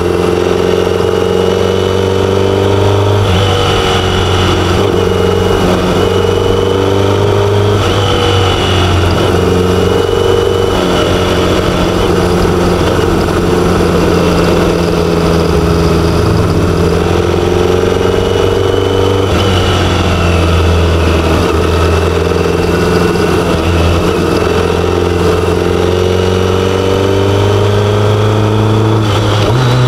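BMW K1100LT motorcycle's inline four-cylinder engine running on the move. Its pitch rises and falls several times as the revs change.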